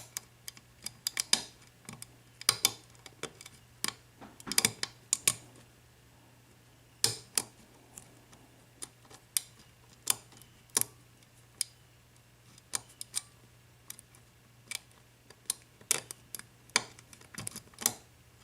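Irregular small metallic clicks and ticks of a lock pick working the pin stack of a brass 4-pin IFAM padlock during single-pin picking, some single and some in quick clusters. A faint steady low hum runs underneath.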